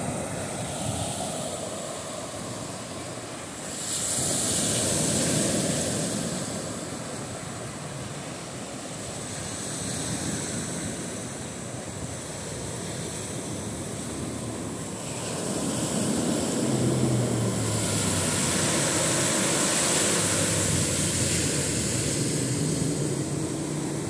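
Small ocean waves breaking and washing up a sandy beach, the wash swelling louder about four seconds in and again for several seconds from about sixteen seconds in. A faint low hum runs under the later wash.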